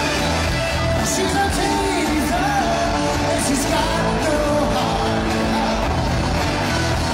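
Live rock band playing: electric guitars and drums, with a sung lead vocal over the top.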